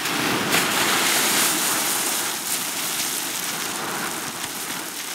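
Loose grain feed pouring from a sack and showering onto a pond's water surface. It is a continuous dense hiss that starts suddenly and is loudest in the first couple of seconds.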